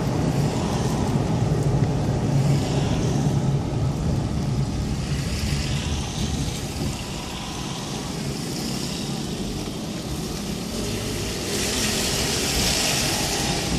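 Car driving on a wet road, heard from inside: a steady low engine hum with tyre and road noise, easing off around the middle. Near the end a louder hiss of tyres on wet pavement comes in.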